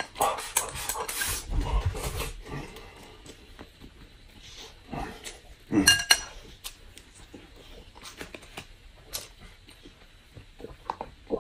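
Eating at the table: chopsticks clicking against a glass rice bowl and dishes, with chewing, busiest in the first couple of seconds. There is one louder, ringing clink about six seconds in.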